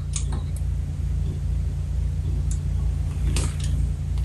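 Steady low hum, with a few light clicks of small metal parts being handled.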